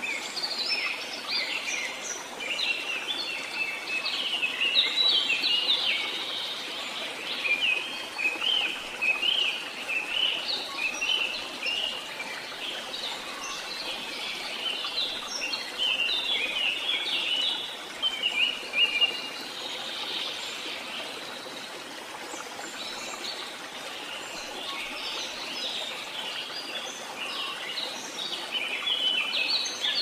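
Birds chirping and twittering in many quick, short, high notes, over a steady soft hiss.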